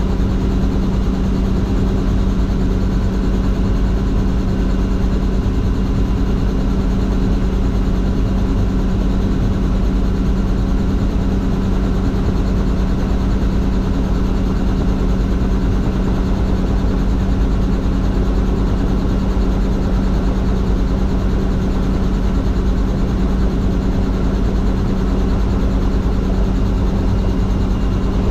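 Helicopter running, heard from inside the cabin: a loud, steady drone of engine and rotor noise with a constant low hum.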